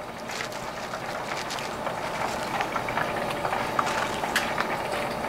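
Hot frying oil crackling and bubbling steadily, over a faint steady hum, with a few sharper clicks from metal tongs handling the fried fish.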